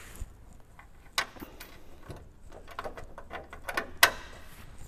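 Scattered clicks and light metal knocks of a bull-bar wing-support bracket and bolt being fitted by hand, with a sharp knock about a second in and the loudest one about four seconds in.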